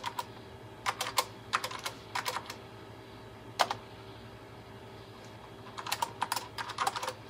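Keystrokes on a Tandy (TRS-80) Model 102's built-in keyboard, typed in short bursts with pauses between: a username and then a password being entered at a login prompt.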